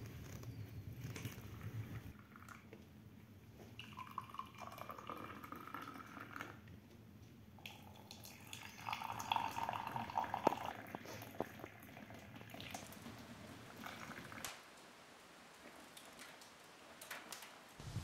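Hot water poured from a metal kettle into a cup, in two pours, each rising slightly in pitch as the cup fills. A few light clicks near the end.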